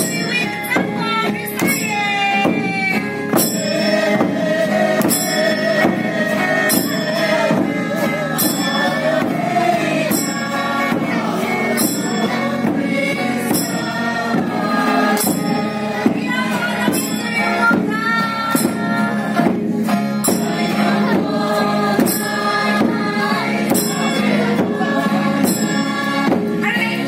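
A group singing a melody over a steady beat, with a bright metallic jingle struck on each beat about every two-thirds of a second.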